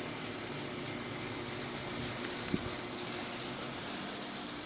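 Steady low background hum, with a few faint taps a little past two seconds in.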